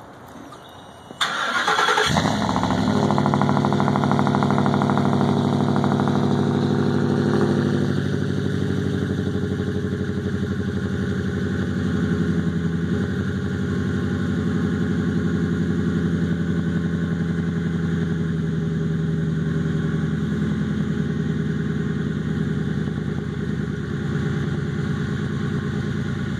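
Ford F-150's 5.4-litre V8 cold-starting through a true dual Flowmaster Super 40 exhaust with long-tube headers and high-flow cats. A brief crank about a second in, then the engine catches and runs at a high cold-start idle. About eight seconds in it settles to a lower, steady idle.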